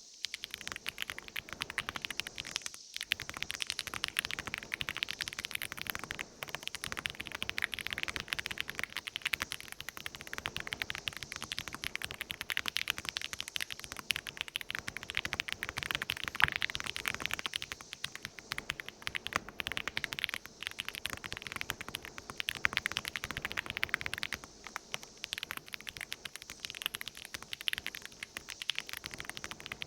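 Redragon K688 full-size mechanical keyboard being typed on at speed: a continuous, rapid clatter of key presses, with a brief pause about three seconds in.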